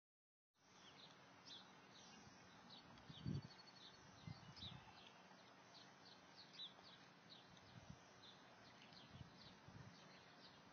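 Faint birdsong: many short, quick chirps of small songbirds, with a few soft low thumps, the loudest about three seconds in.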